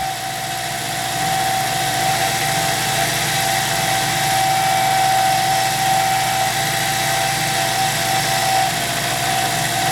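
Cue lathe running with a steady whine while a cutting tool faces off the cue's tenon, taking dried glue off the end of the ferrule.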